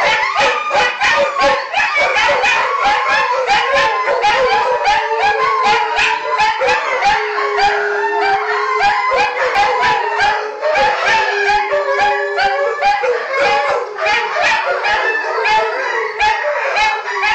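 Wolf hybrids and dogs howling together in chorus: many overlapping shrill howls and yips over a low, sonorous, held howl from a pit bull–boxer mix.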